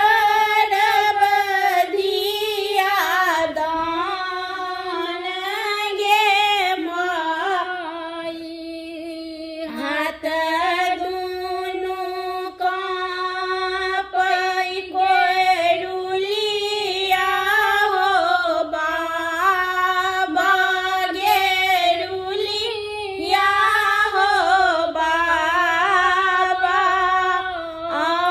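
Two women singing a Maithili wedding folk song together without instruments, in long held, wavering melodic lines.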